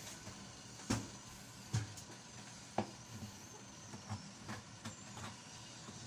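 Objects being handled on a counter: three sharp knocks about one, two and three seconds in, then a run of lighter taps and clinks, over a steady hum.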